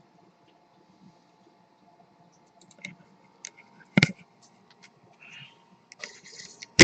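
Irregular clicks and taps of a computer keyboard and mouse, beginning after about two and a half seconds, with a louder click about four seconds in and sharp clicks near the end.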